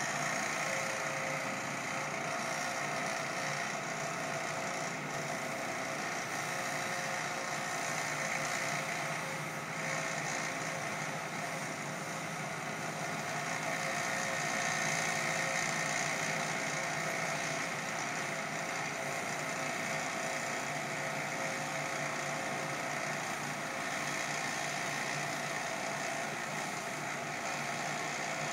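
Commercial power washer running continuously, a steady engine-like drone with a constant hiss over it and no breaks.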